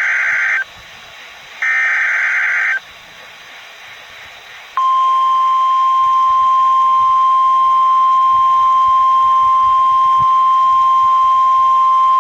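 NOAA Weather Radio Emergency Alert System signal for a tornado warning. First come the last two bursts of the SAME digital header, each a harsh, screechy data buzz about a second long. After a pause, about five seconds in, the steady single-pitch 1050 Hz warning alarm tone starts and holds.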